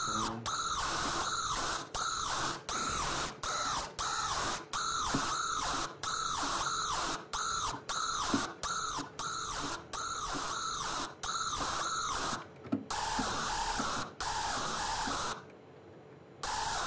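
Hardstyle screech lead from an Xfer Serum synth patch, filtered with high resonance and distorted, played as a run of short repeated notes, about two a second, each sweeping harshly. Near the end it holds one longer note before the short notes resume.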